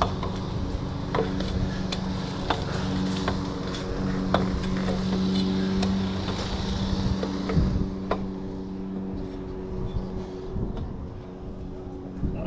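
Scattered knocks and clanks of hands and feet on an extension ladder's aluminium rungs as it is climbed, over the steady hum of a running engine that weakens near the end.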